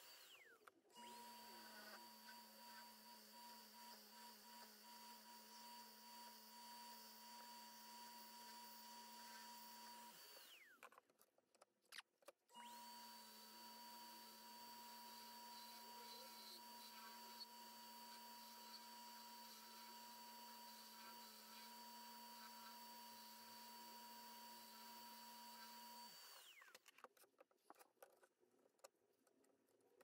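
Faint, steady electric whine of a Rockler mini Excelsior wood lathe spinning a bowl blank. The whine falls in pitch and dies away as the lathe is switched off just after the start, about ten seconds in, and again near the end. It starts up again after the first two stops.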